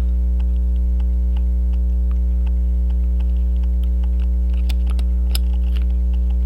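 Loud steady electrical mains hum with a stack of harmonics. Through it runs a faint regular ticking, about four ticks a second, and a few sharper small clicks come about five seconds in.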